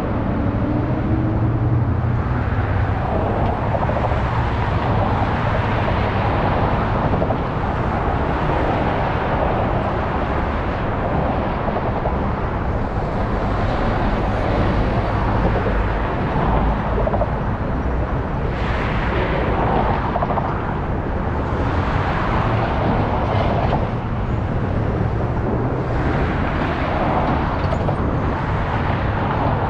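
Traffic passing through a city intersection: vehicles going by one after another, with a city transit bus crossing close by about halfway through, over a steady low hum.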